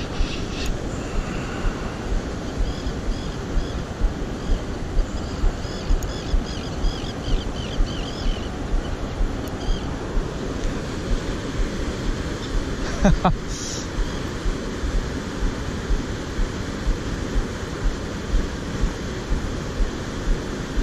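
Wind buffeting the microphone over fast-flowing river water: a steady rushing noise with low thumps about twice a second. A single sharp click comes about two-thirds of the way through.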